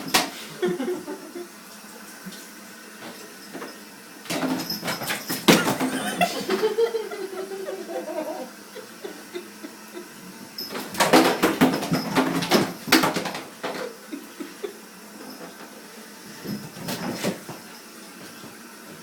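A cat's claws scrabbling and slipping on a bathtub as it tries to run, in three bouts of rapid scratching, each about one to two and a half seconds long.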